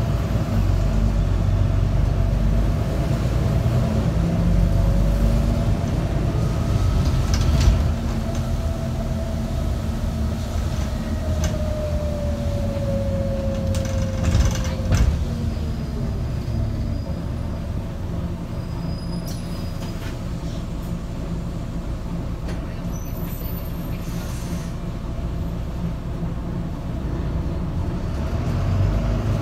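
Volvo B9TL double-decker bus heard from inside the lower deck while under way: its six-cylinder diesel and drivetrain run with a steady low rumble, and a whine slides down in pitch around the middle. A few short knocks and rattles come through the cabin.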